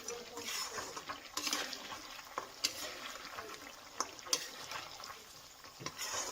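Food being stirred or mixed, with irregular small clicks and crackles.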